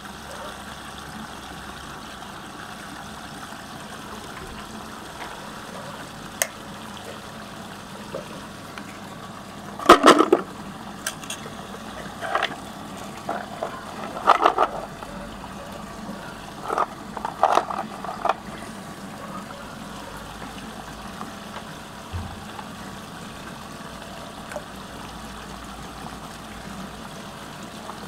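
Steady rush of water swirling down a whirlpool drain. From about ten seconds in, for some eight seconds, a run of knocks and clatters comes from a wooden box of paint tubes being handled; the first knock is the loudest.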